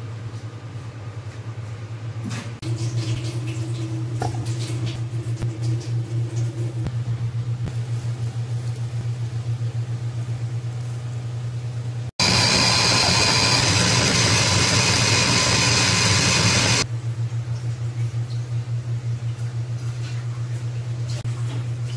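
Electric food chopper (Kenwood Quad-Blade) running in one loud burst of about four and a half seconds, starting and stopping suddenly about halfway through, as it blends tomato, chillies, coriander, ginger and garlic. A steady low hum runs underneath.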